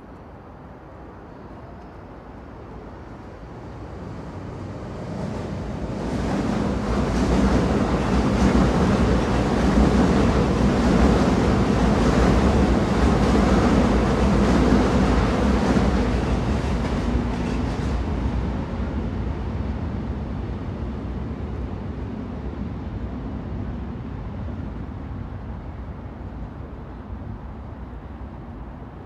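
Train rumbling along the rails, growing louder over several seconds, then fading slowly after the loudest stretch in the middle.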